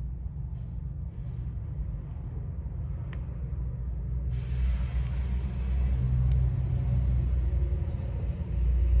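Low, steady background rumble that grows a little louder in the second half, with a faint hiss joining about four seconds in and a single light click about three seconds in.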